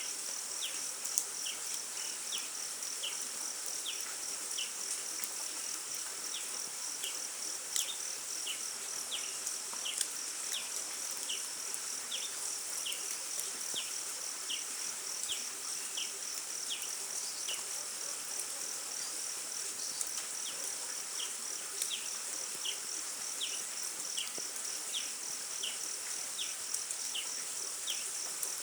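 A steady chorus of insects, crickets or similar, with a high hiss and a fast even pulsing. A series of short high chirps repeats about twice a second through it, with a few sharp clicks about a second, eight seconds and ten seconds in.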